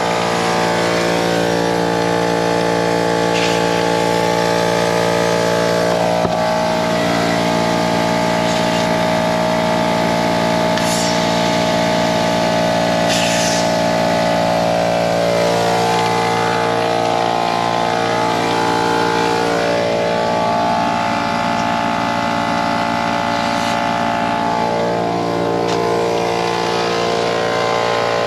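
Air compressor running steadily with a constant pitched drone as it feeds compressed air into an RV's fresh-water lines to blow out the water, with two short hisses near the middle.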